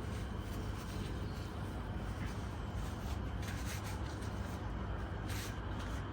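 A few quiet rubbing and handling noises over a steady low hum.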